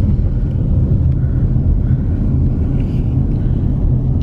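Steady low rumble of road and wind noise inside a slowly moving car.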